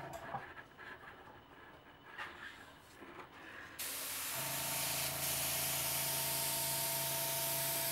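Airbrush test-spraying enamel paint, a steady hiss that starts about four seconds in. A small airbrush compressor's steady hum stops just after the start and comes back on about half a second after the spray begins.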